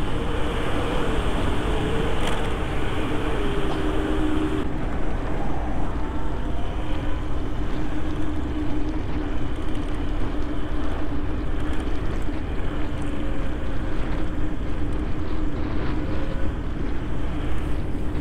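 Wind rushing over the microphone and road noise from a personal electric vehicle ridden fast on pavement, with a steady electric motor whine underneath.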